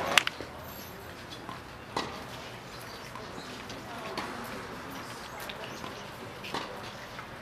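Tennis ball knocks on a hard court: a sharp double knock about a fifth of a second in, then single knocks roughly every two seconds.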